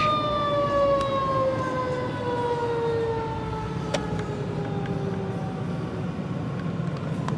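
Fire engine siren winding down, its pitch falling slowly and steadily over several seconds, over the low rumble of the engine and traffic. A single sharp click about four seconds in.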